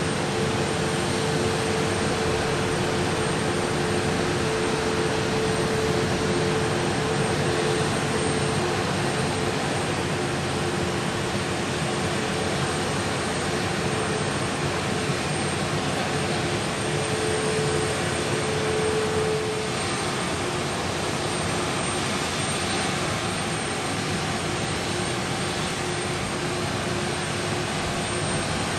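Boeing 737-8 MAX jet engines running at taxi idle: a steady engine rush with a held hum in two tones. The higher tone stops about two-thirds of the way through.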